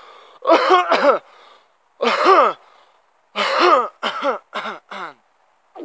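A man coughing hoarsely into his fist: a series of rough, voiced coughs in fits, ending in a quick run of short coughs. He puts the coughing down to dehydration.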